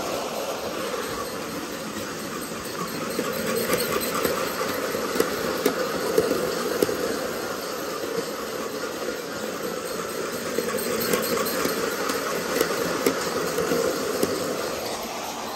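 Bachmann G-scale Percy electric model train running round a track loop pulling trucks and coaches: a steady motor whirr and wheel rumble with clicks over the rail joints, swelling and fading as the train circles past.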